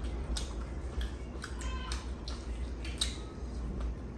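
Close-up eating sounds: scattered wet chewing and lip-smacking clicks as rice and curry are eaten by hand, over a steady low hum.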